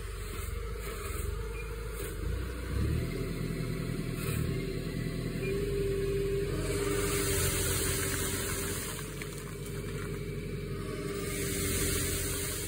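Spedo Fruipick tree shaker running clamped to a walnut trunk: its engine revs up a couple of seconds in and holds at a steady high speed while it shakes the tree. Twice in the second half a hissing rustle rises over it as the shaken canopy moves.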